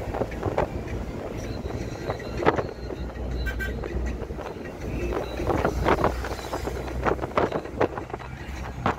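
A car driving along a road, heard from inside with the window open: a steady low road rumble and wind, with scattered short thuds.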